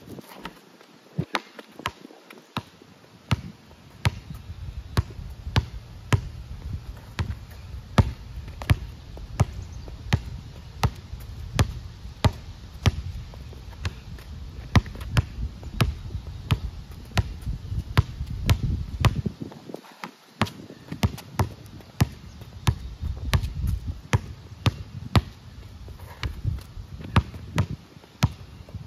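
Basketball being dribbled hard on a concrete court: sharp bounces about twice a second in uneven runs of crossover dribbles, over a low rumble.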